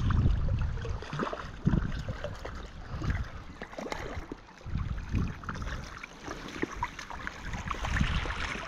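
Irregular splashing and sloshing of river water as a landing net is worked through the shallows and a hooked brown trout is netted, over the steady rush of the river. Wind rumbles on the microphone at the start.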